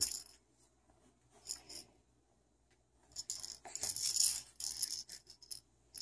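Baby's rattle socks, plush animal-head booties with rattles in them, shaking as she kicks her legs. There are brief rattles at the start and about a second and a half in, then a longer, louder spell of rattling from about three seconds in.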